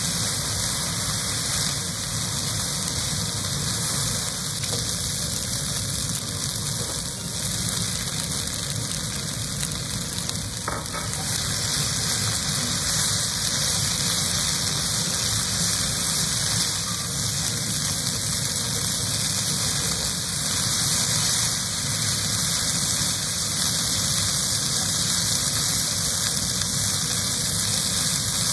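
Chicken, onion and garlic and sliced mushrooms sizzling as they sauté in a nonstick frying pan: a steady hiss over a low rumble, the hiss growing a little stronger about a third of the way in.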